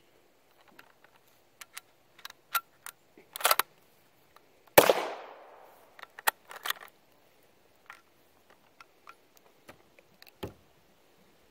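A single shot from a bolt-action rifle firing a blank cartridge with a plastic false bullet, one sharp report that dies away over about a second. Before and after it come metallic clicks as the rifle is loaded and the bolt is worked.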